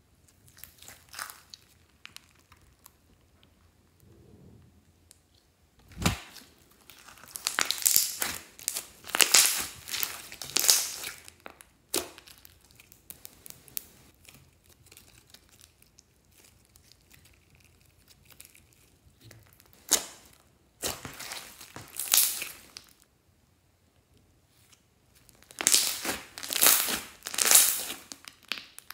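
Hands kneading and stretching thick fluffy slime mixed with glitter: sticky crackling and popping in three loud spells, with quiet gaps between and one sharp snap about six seconds in.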